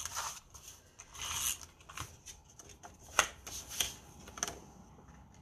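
Paper and cardstock rubbing and rustling in the hands as adhesive is run along a strip of patterned paper and the strip is picked up and turned over, in a few short scrapes with one sharp tap a little past three seconds in.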